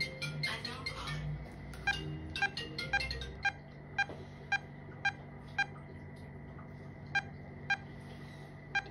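Medical patient monitor giving its short pulse beep about twice a second, over a steady electrical hum. Light clattering and handling noises in the first three seconds or so.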